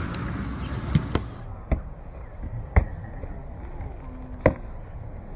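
Football being juggled with the feet and legs: about five separate dull touches of the ball at uneven gaps, over a quiet outdoor background.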